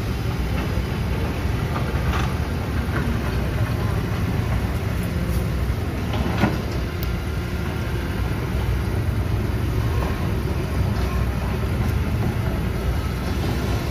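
Diesel engines of excavators and dump trucks running in a steady low rumble, with a few short knocks, the clearest about six and a half seconds in.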